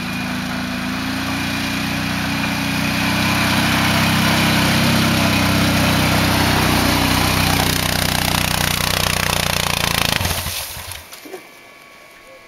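ATV engine running at a steady pitch as a quad climbs a dusty dirt trail, growing louder over the first few seconds and then falling away sharply about ten seconds in.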